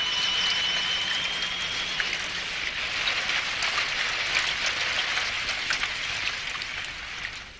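Heavy rain falling: a steady hiss with many small drop ticks, dying away near the end. A thin, steady high tone runs over it for the first two seconds.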